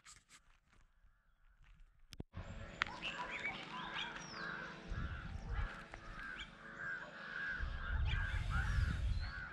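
Birds calling over and over in a quick run of short, similar calls, two to three a second, starting abruptly about two seconds in. Low rumbles on the microphone come in the middle and, louder, near the end.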